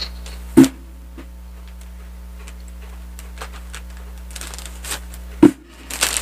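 Scissors snipping through a plastic courier mailer pouch in small, sharp cuts, with two louder knocks on the table, one about half a second in and one near the end. The plastic then starts to crinkle as the pouch is pulled open. A steady low hum runs underneath.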